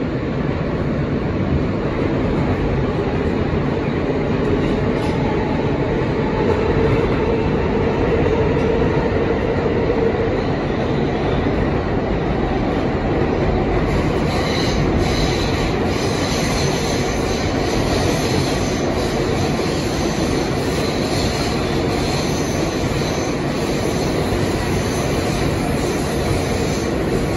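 R160 New York City subway car heard from inside, pulling past the station platform and running through the tunnel at speed, a steady heavy rumble of wheels on rail. High-pitched wheel squeal joins in from about halfway through.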